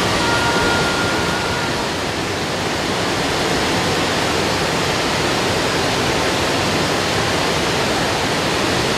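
Waterfall rushing steadily, an even wash of falling water. A held high note, the tail of the music, fades out within the first two seconds.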